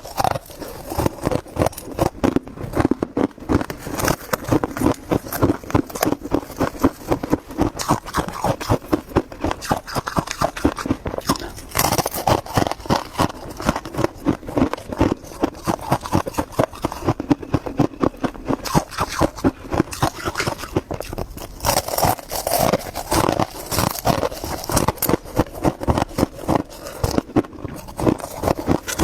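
Freezer frost being chewed up close to the microphone: a steady run of crisp crunches, several a second.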